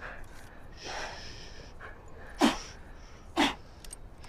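Heavy, strained breathing of men wrestling: a hissing breath about a second in, then two short, sharp, forceful exhalations about a second apart, the loudest sounds here.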